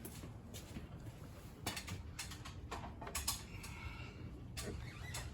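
A few sharp clicks and light knocks, about half a second apart, from hands handling parts or tools at the truck's engine.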